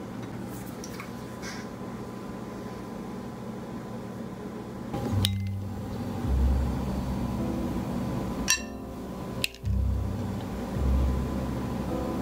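A metal spoon clinks against a small ceramic bowl while mustard sauce is stirred, with sharp clinks about five seconds in and twice more about three seconds later. A kitchen appliance hums steadily underneath.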